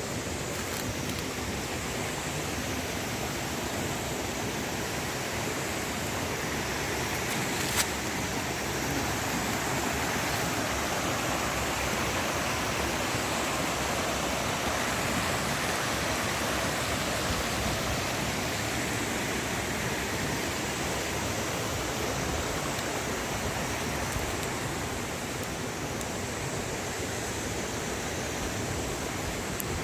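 Steady rush of flowing river water, with a sharp click about eight seconds in.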